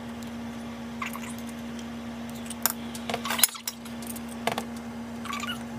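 Metal spoon scraping peanut butter out of a jar and clinking against a glass measuring cup: a few scattered clinks and knocks, the busiest in the middle, over a steady low hum.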